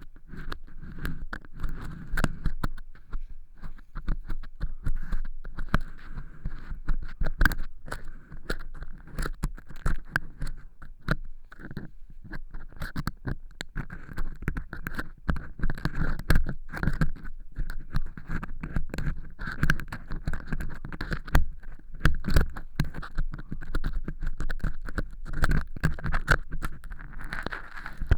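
Ear pick scraping dry cork-chip fake earwax inside an ear canal, giving a dense, irregular crackle of sharp crunchy clicks.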